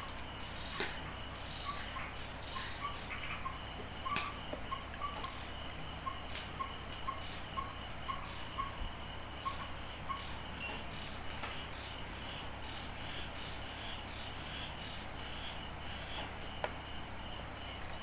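Insects chirping steadily in a continuous pulsing trill. A faint high peep repeats about twice a second over the first half, and a few sharp clicks are heard as hands handle small fish in a plastic tub of water.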